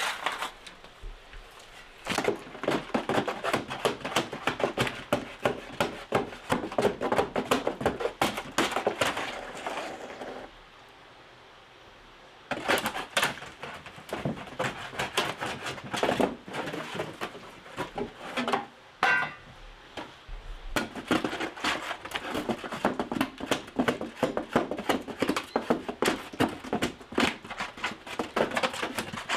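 Rapid, repeated sharp knocks or taps, several a second, going on in runs that stop briefly twice.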